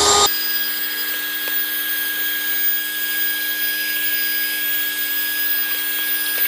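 Bergmann 2-in-1 handheld car vacuum cleaner running steadily as its nozzle sucks dust off a car floor mat, its small motor giving a constant high whine.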